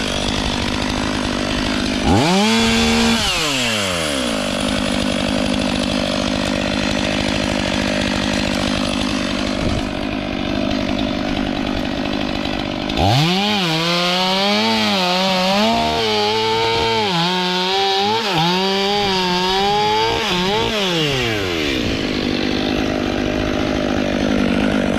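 STIHL MS 500i fuel-injected two-stroke chainsaw idling, with a brief throttle blip about two seconds in. About thirteen seconds in it revs to full throttle and runs for about eight seconds, its pitch repeatedly dipping and recovering as the chain bites into wood, then drops back to idle.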